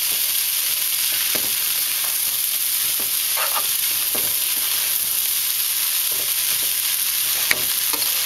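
Chicken fried rice sizzling in a nonstick pan while a spatula stirs and tosses it, with a steady hiss and scattered light scrapes of the utensils against the pan. A single sharp tap comes near the end.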